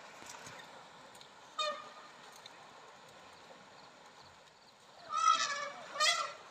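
Asian elephants trumpeting: one short call about one and a half seconds in, then two louder calls near the end, the first about half a second long.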